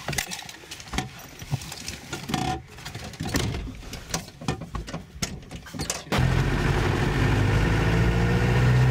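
Scattered knocks and handling noises, then about six seconds in a loud, steady car engine and road noise from inside the moving car starts suddenly.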